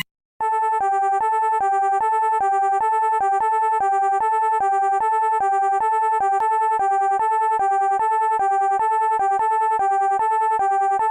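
Electronic two-tone hi-lo warning siren: a high note and a much lower note alternating evenly, about one high-low pair a second, with a buzzy, synthetic timbre. It starts after a brief silence.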